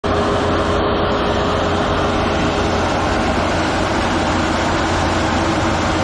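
FMWorld combine harvester running at close range, its engine and unloading auger making a loud, steady mechanical drone with a faint steady hum, as threshed paddy pours from the discharge spout into sacks.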